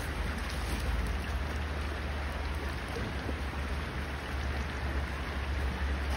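Steady rushing of a flowing river, an even noise with a strong low rumble underneath.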